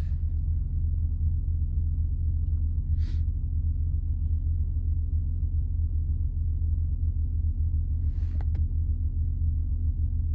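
The 2003 Acura TL Type S's 3.2-litre V6 idling steadily, heard from inside the cabin as a low rumble, with the automatic transmission selected into D4 during a check of its failure to engage gears. Two brief faint noises come about three and eight seconds in.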